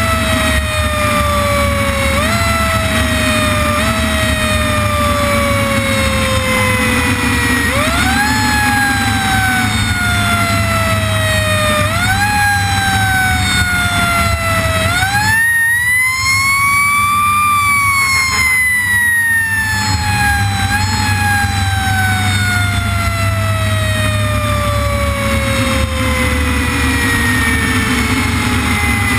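Fire engine siren sounding over the truck's engine and road noise. The siren's pitch jumps up quickly and slides slowly back down again and again, with one longer, higher rise about halfway through followed by a long, slow fall.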